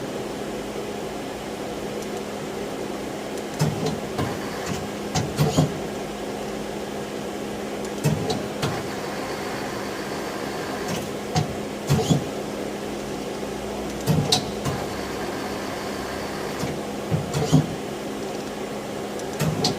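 Okuma Crown 762 SBB CNC lathe running: a steady machine hum with a constant low tone, broken every three to four seconds by short clusters of sharp clunks and knocks.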